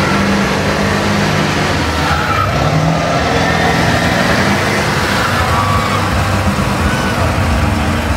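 Big-block engines of lifted mud trucks running hard at high revs under heavy load, pulling against each other in a truck tug of war; the pitch shifts as they work.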